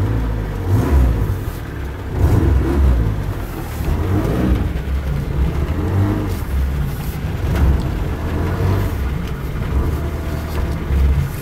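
Toyota AE86 Corolla GTS's 4A-GE four-cylinder engine running at low revs, heard from inside the cabin, its note rising and falling a little under light throttle.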